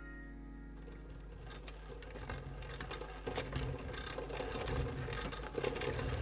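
Wheelchair wheels rolling over uneven stone paving slabs: a fast, steady rattle and clatter that starts about a second in and grows louder.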